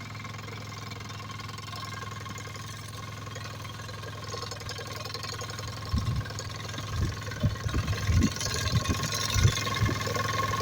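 Engine of a hay-mowing machine running steadily, getting louder about halfway through, with irregular low thumps in the second half.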